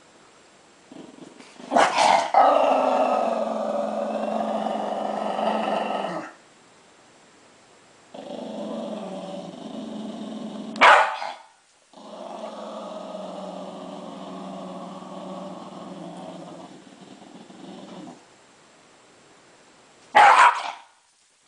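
Small dog growling in three long, steady growls, with a short loud outburst before the first, another right after the second and one near the end. It is a dog guarding its stolen prize and warning off a reaching hand.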